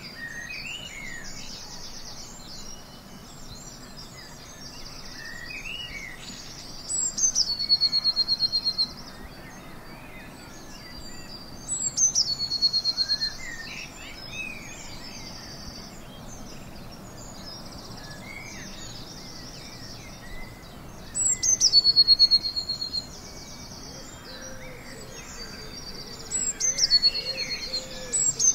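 Dawn chorus of wild songbirds calling over a steady outdoor hiss. One bird repeats a loud, high song of about two seconds four times, each ending in a sharp downward sweep and a rapid run of repeated notes, while fainter birds chirp in between.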